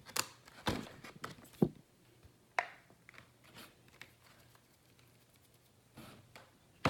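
Small objects being handled: a few short clicks and rustles, one with a brief squeak, in the first three seconds, then quiet room tone with faint rustling near the end.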